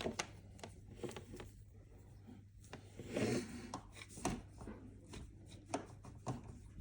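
Faint handling of a plastic hair dryer: rubbing and scattered light clicks and knocks, with a soft scrape about three seconds in.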